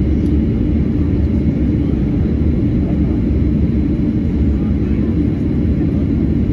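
Steady low rumble inside the cabin of a Boeing 737-800 taxiing after landing, its CFM56-7B engines at idle.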